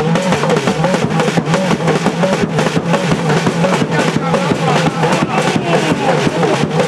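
A crowd of voices singing and calling over a drum struck about twice a second, with a steady low drone beneath.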